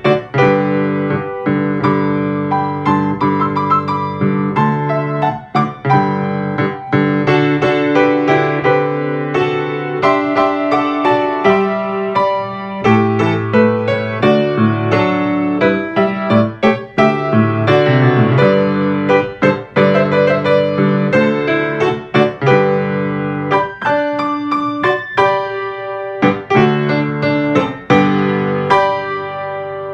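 Solo piano playing a postlude: chords and melody notes struck and left to ring, with frequent new attacks.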